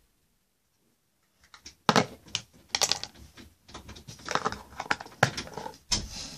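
Irregular run of clicks, taps and knocks, starting about two seconds in, from hands handling the recording device right at the microphone.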